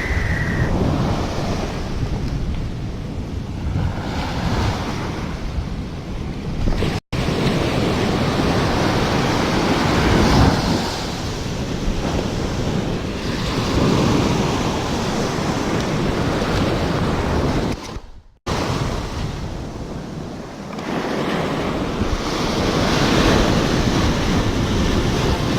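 Ocean surf breaking on the shore, swelling and ebbing in waves, with wind buffeting the microphone. The sound drops out briefly twice.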